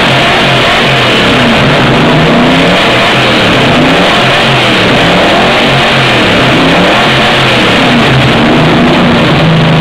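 Ford Maverick engine revved repeatedly in short blips, its pitch rising and falling over a steady idle. Loud throughout.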